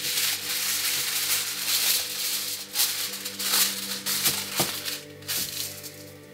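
Sheet of thick aluminium foil crinkling and rustling as it is folded in half and pressed flat by hand. The crinkling is busiest in the first few seconds and thins out near the end.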